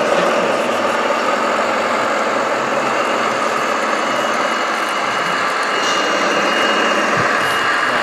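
Radio-controlled scale model Komatsu 65PX bulldozer running steadily, with a faint high whine setting in about three seconds in.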